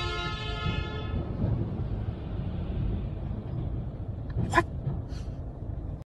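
Steady low rumble of a moving vehicle's cabin. A held steady note fades out over the first second or so, and two brief faint sounds come about four and a half and five seconds in.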